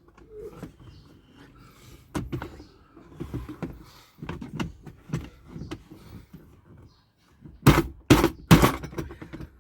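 Plastic knocks and clicks of a car's glove compartment being worked loose from the dashboard, with three loud clunks in quick succession near the end.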